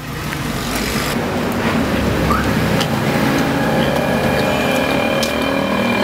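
Steady street noise: road traffic with a low rumble.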